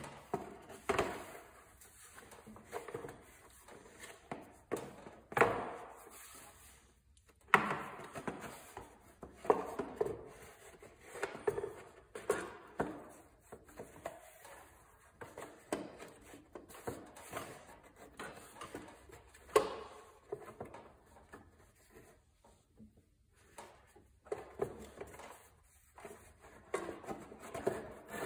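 Hard plastic engine shroud being handled and worked into place over a lawn-tractor V-twin engine: irregular knocks, clunks and scrapes, with a few sharper knocks.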